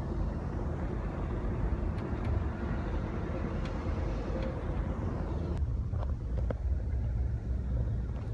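Steady low rumble and road noise of a moving vehicle heard from inside; the higher part of the noise drops away suddenly about five and a half seconds in.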